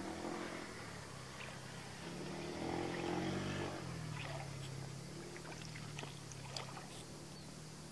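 A distant motor engine runs throughout with a low, steady hum that rises and falls in pitch, loudest about three seconds in. Light splashes and clicks come from hands moving through shallow water.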